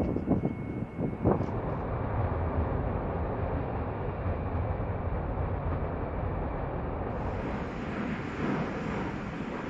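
Jet engine noise from a B-1B Lancer's four General Electric F101 afterburning turbofans during its takeoff roll: a steady rush, with a few brief louder bursts in the first second and a half, growing a little louder near the end.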